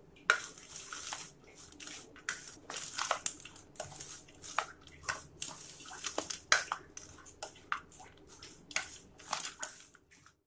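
A mix of roasted nuts, oats and sesame with date paste and honey being stirred by hand in a stainless steel bowl: irregular rustling with many small clicks of nut pieces against the steel, several a second.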